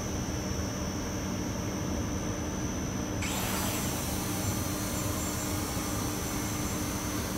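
Small SJRC quadcopter drone's propellers buzzing steadily in flight, a steady hum with a high whine over it; about three seconds in a hiss joins and stays.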